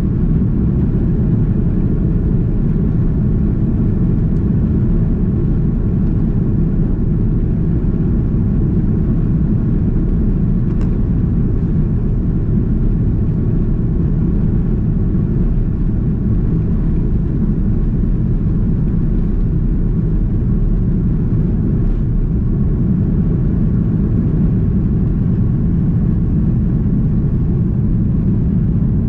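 Airbus A330-300 taking off, heard from inside the cabin: the engines at takeoff power with a steady, deep, loud rumble that carries on unchanged through the takeoff roll and liftoff.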